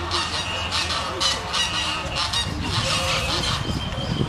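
A chorus of short, overlapping bird calls, continuous and fairly loud.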